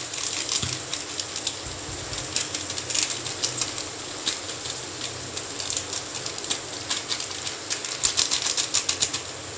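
Peas, carrots and onion sizzling in hot oil in a kadhai: a steady hiss with a fast patter of small crackles and pops, thickest about two to three seconds in and again near the end.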